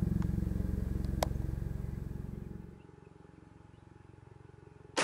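An engine idling with a low, pulsing hum, which fades out about halfway through. Then it is fairly quiet until a sharp, loud 12-gauge shotgun shot right at the end.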